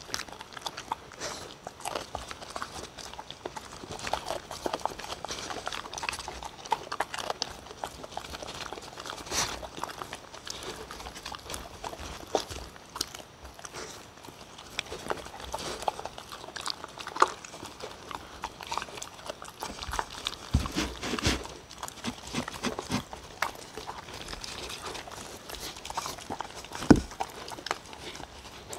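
Two dogs eating chopped chicken breast, banana, bell pepper and sweet potato from wooden bowls, close to the microphone: steady wet chewing and licking full of small clicks. A couple of louder knocks come about two-thirds of the way in and near the end.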